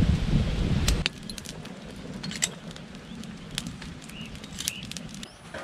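Corn-cob fire crackling under an iron grill of lukan clam shells that are being burned down to make lime. Scattered sharp clicks of metal tongs knock against the shells. A low wind rumble on the microphone covers the first second, then cuts off.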